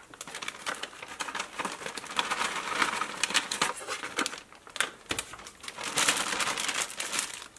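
Plastic zip-top bag crinkling and rustling in irregular crackles as it is handled, held open and pressed shut.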